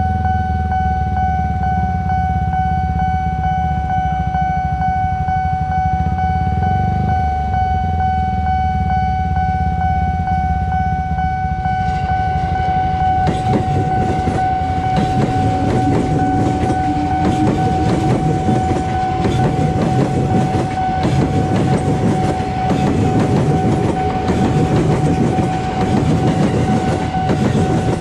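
A level-crossing warning signal sounds one steady tone over a low rumble of waiting traffic. From about halfway through, an ex-JR East 205 series KRL electric commuter train passes close by, its wheels clattering over the rail joints, until shortly before the end.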